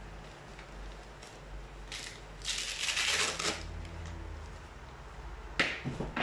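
Handling noise: a rustle lasting about a second, starting a little before the middle, then a few sharp clicks near the end.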